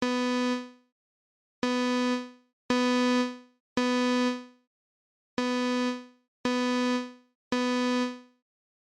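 Synthesized imitation of a Simplex fire alarm sounding the temporal code-three evacuation pattern, made in Chrome Music Lab's Song Maker: a low synth note repeated in groups of three about a second apart, with a longer pause between groups. It finishes one group, plays two full groups of three, then stops near the end.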